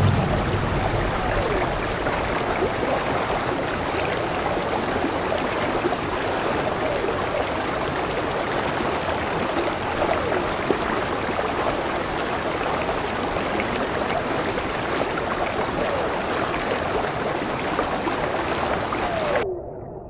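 Heavy rain pouring onto a water surface: a steady, even rush of splashing, with now and then a short falling plink. It cuts off abruptly near the end.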